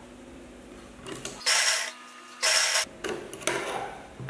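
Sewing machine stitching in two short bursts of about half a second each, a second apart.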